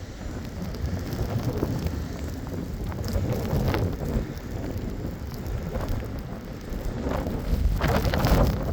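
Blizzard wind gusting, buffeting the microphone with a low rumble over a steady hiss, swelling louder near the end.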